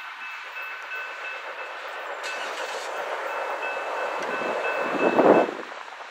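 Level-crossing warning bells ringing steadily while the crossing gates rise, stopping about five and a half seconds in. A rush of noise swells to a loud peak just before the bells stop.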